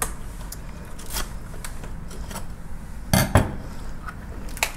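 Knife scraping and cutting along a giant lobster's shell on a wooden cutting board: scattered clicks and scrapes, with two loud knocks in quick succession about three seconds in.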